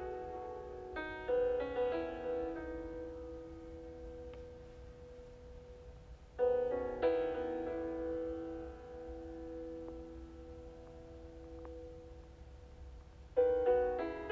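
Slow background piano music: a few chords struck about a second in, again around six and a half seconds in, and near the end, each left ringing and fading.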